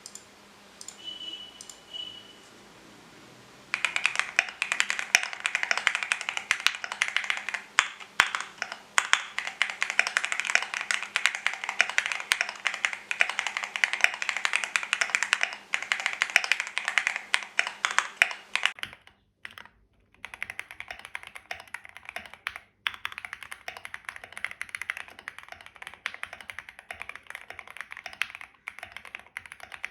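QK75 custom mechanical keyboard with unlubed Gateron CJ linear switches being typed on quickly, a dense run of key clacks. Typing starts a few seconds in, stops briefly about two-thirds of the way through, then picks up again.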